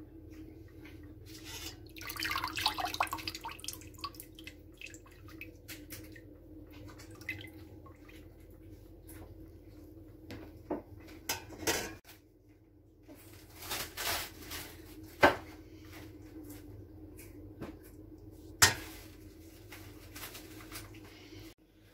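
Stainless steel colander, spoon and pot handled over boiled bone broth. Liquid splashes and drips a couple of seconds in, then there are several sharp metallic clanks, two of them loud, over a steady low hum.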